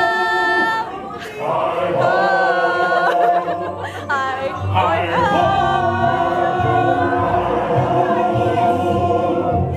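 Recorded ride music with a group of voices singing, long held notes sung in harmony.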